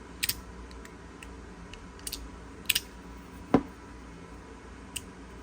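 Metal fidget slider being worked by hand, giving a few scattered sharp clicks, the loudest just past halfway. The slider is being tested for a gummed-up track.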